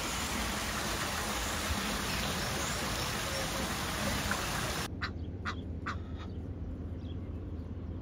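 Steady rush of running water; about five seconds in it cuts off suddenly, and three short bird calls follow in quick succession over a quieter background.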